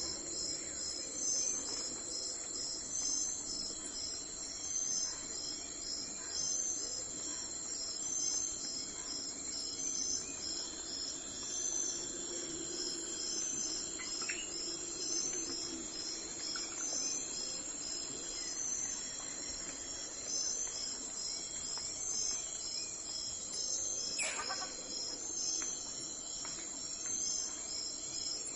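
Crickets chirping in a steady, high-pitched chorus with an even, repeating pulse. There is one brief sharp sound about 24 seconds in.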